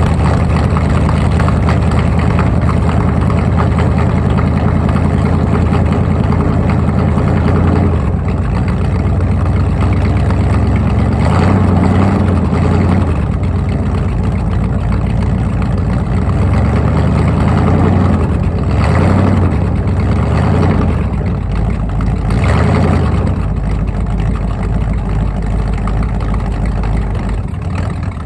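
Ford 302 small-block V8 running through its exhaust during a cold-start warm-up. The engine speed rises and falls a few times as the throttle is worked to keep the cold engine running.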